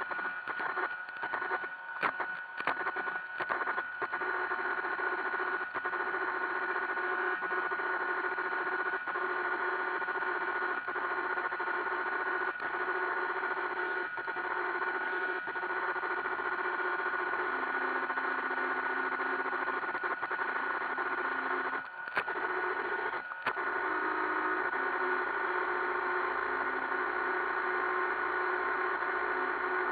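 iRobot Roomba 560 robot vacuum running, a steady motor whine with a high tone and a lower hum. Several sharp knocks in the first few seconds and two more a little past twenty seconds in.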